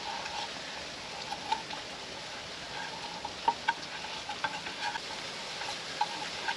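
Food sizzling in a pan, a steady hiss broken by scattered crackles and a few sharp clicks and taps, the sharpest about halfway through and near the end.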